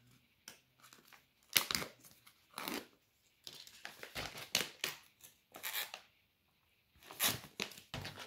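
Plastic packaging crinkling and crackling in a string of short bursts as someone struggles to tear it open by hand.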